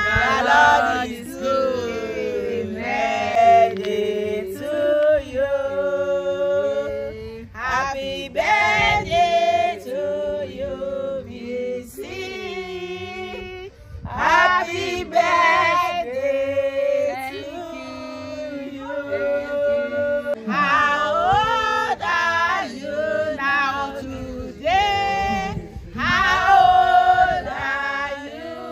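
A group of women singing a song together, several voices in chorus.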